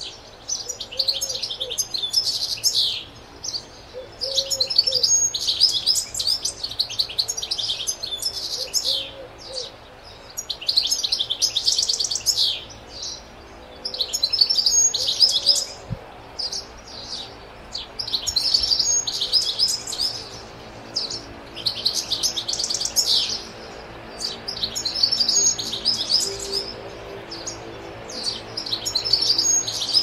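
European goldfinch singing: phrases of rapid, high twittering notes, each a second or two long, repeated with short pauses between them.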